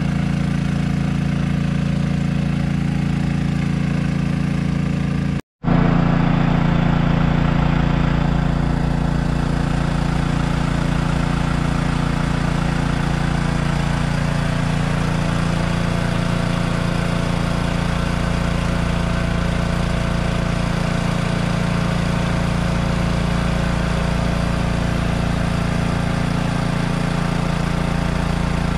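Small engine of a drum-mounted sealcoat sprayer running steadily at constant speed while it drives the sealer pump, broken by a brief cutout about five seconds in.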